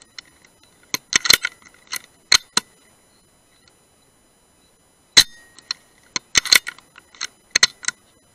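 Moderated Brocock Sniper HR .177 PCP air rifle firing once about five seconds in: a sharp crack with a brief metallic ring. Each shot is followed by a quick run of metallic clicks and clacks, which fits the action being cycled to load the next pellet; one such run comes near the start and another right after the shot.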